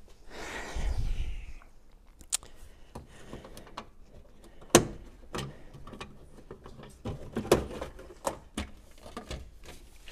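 Handling noises in a car trunk: the hardboard trunk floor cover is shifted with a scraping rustle, then comes a string of sharp clicks and knocks as parts are handled, the loudest knock about five seconds in.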